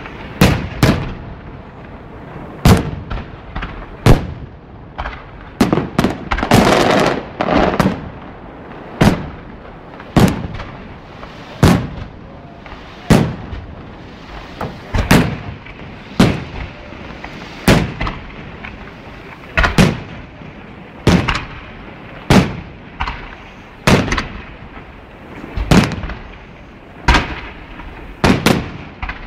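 Firework shells bursting in a steady succession of loud bangs, about one every second or so, each echoing briefly. A thicker patch of crackling bangs comes about a quarter of the way in.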